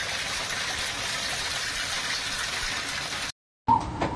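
Steady rushing of storm water, an even hiss with no rhythm, that cuts off suddenly a little over three seconds in. After a moment of silence a different recording starts, with a couple of sharp knocks.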